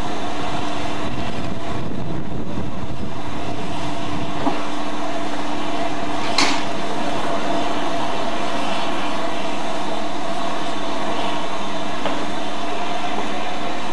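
Steam locomotives working in a station: a steady mechanical rumble with an even hum, broken by one short, sharp noise about six and a half seconds in.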